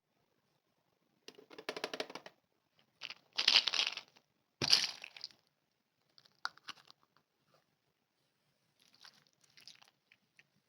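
Toy packaging being torn and crinkled open by hand: three loud bursts of tearing and crinkling, the third starting with a sharp snap, then softer rustles and clicks.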